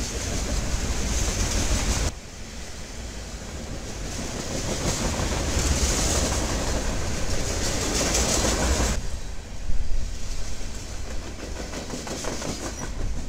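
Freight train of loaded flatcars rolling past close by: a steady rush of steel wheels on rail, changing abruptly about two and nine seconds in, with a run of clickety-clack wheel clicks over the rail joints near the end.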